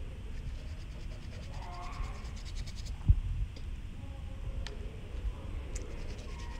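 A watercolour brush swishing over paper in quick, scratchy strokes, with a dull knock about three seconds in and a couple of light clicks later.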